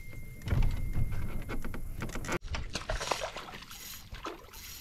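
Water sloshing and splashing around a small fishing boat's hull, with scattered sharp knocks and clicks. The sound breaks off abruptly about two and a half seconds in, then picks up again.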